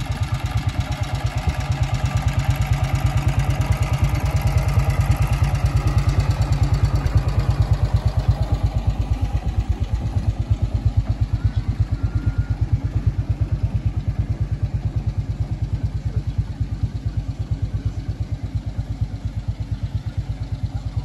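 Three-wheeled tractor's JAP engine running under way, with a rapid, even beat of firing strokes. It is loudest as the tractor passes close by, a few seconds in, and a little fainter as it moves away.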